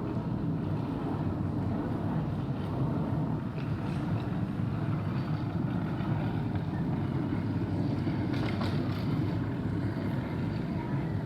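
Airport terminal ambience: a steady low rumble with a few faint clicks and clatter about eight seconds in.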